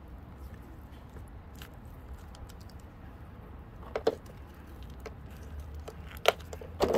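Hands handling a muddy fossil-bearing rock in a tub of water: a few short knocks and crunches of stone, a double one about four seconds in and two more near the end, over a low steady rumble.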